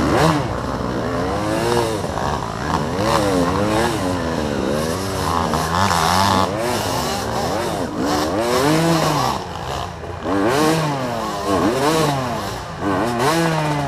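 Honda dirt bike engine revved in repeated bursts, the pitch rising and falling about every second and a half, as the bike works up a steep dirt climb.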